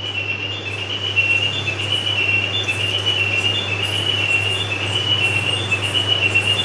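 A steady low hum with a high, thin whine over it that wavers up and down in small steps throughout. Soft handling sounds come from wheat-flour dough being kneaded by hand.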